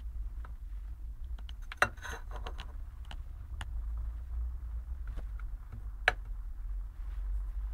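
A metal electrode being handled in a glass jar of salt water: a few sharp clicks and a short scrape as it knocks against the jar, over a steady low hum.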